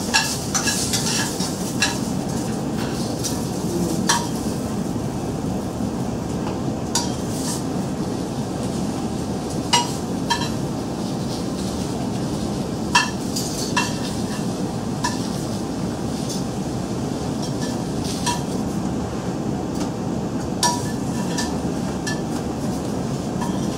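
Metal tongs clinking against a sauté pan and plates, a dozen or so sharp clicks at uneven intervals, over the steady sizzle of vegetables in the pan.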